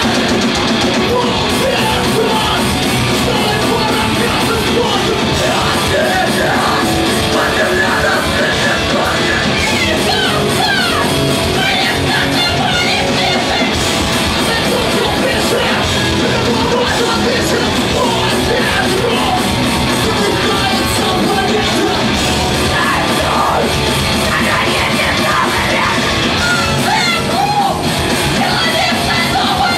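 Punk rock band playing live and loud: electric guitars and bass with the full band, under shouted vocals with several voices yelling along.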